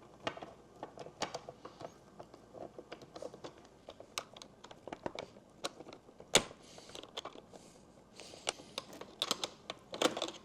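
Throttle linkage parts being worked loose by hand: scattered small metal clicks and taps, with one sharper click about six seconds in.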